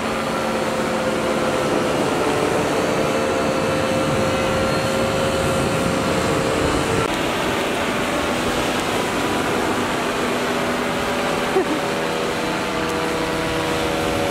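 Paramotor engine and propeller running in flight, a steady drone whose pitch shifts about halfway through.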